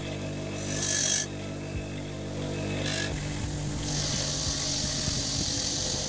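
Electric bench motor running steadily with a grinding wheel spinning on its shaft; steel is pressed against the wheel in bursts, a hissing grind about a second in and again from about four seconds on.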